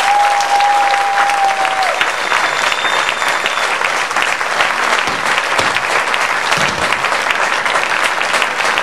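Audience applauding, dense steady clapping. A single held tone sounds over the clapping for about the first two seconds.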